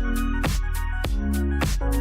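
Electronic background music with a steady beat of sharp drum hits about three times a second over sustained synth tones and heavy bass.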